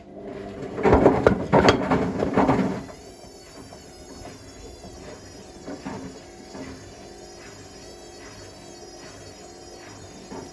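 Bricks clattering and knocking inside a Hotpoint Smart Tech WMFUG742 washing machine's drum for about two seconds as it turns. The machine then runs steadily with a low hum, a faint wavering whine and the odd light knock from the drum.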